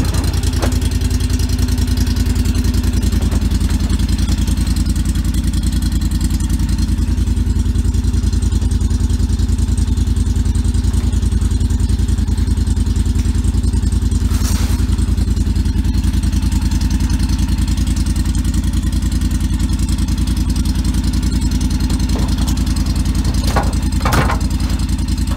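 Steady low drone of a vehicle engine running at an even pace, with a short knock about halfway through and a couple more near the end.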